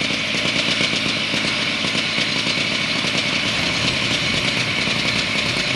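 Small engine running steadily with a fast, even pulsing.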